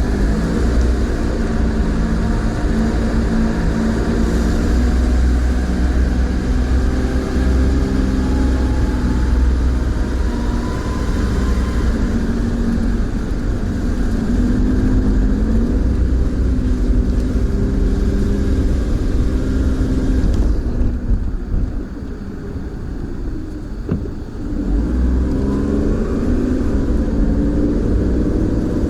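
Car engine and road noise heard from inside the cabin while driving, the engine note rising and falling with speed. About two-thirds of the way through it quietens as the car slows, then picks up again.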